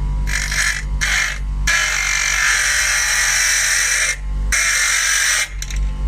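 Silverline DIY 150 W bench grinder running with a steady hum while a workpiece is pressed against the spinning wheel four times, giving a harsh grinding hiss; the longest contact lasts about two and a half seconds. The motor holds its speed under the load.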